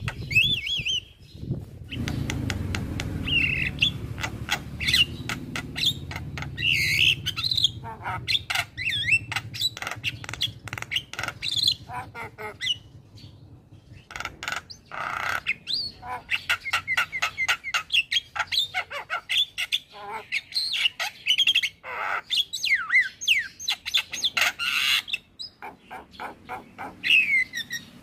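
Male Javan myna singing: a rapid, jumbled run of sharp clicks, harsh squawks and short whistles that glide up and down. A low rumble sits underneath during the first several seconds.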